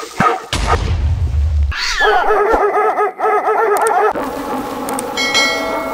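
Edited dog-bark sound effects: a game-style woof variation, then many copies of a dog's bark stacked into a dense chorus of barking for about two seconds. A short ringing chime comes in near the end.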